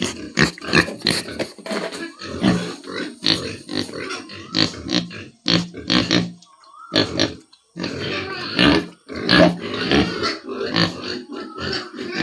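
Domestic pigs calling: many short, overlapping calls in quick succession, with a brief lull about six and a half seconds in.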